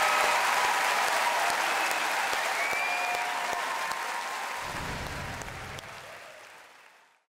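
Large theatre audience applauding, with a few cheers and a whistle among the clapping. The applause fades away to silence in the last two seconds.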